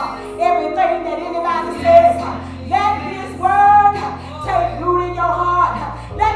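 A woman singing into a handheld microphone, over held low accompaniment chords that change about two seconds in and again about four and a half seconds in.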